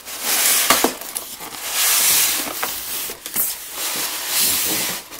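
Polystyrene foam packing insert scraping and rubbing against the cardboard box as it is pushed out, a hissing scrape in a few long strokes with some sharp clicks and creaks.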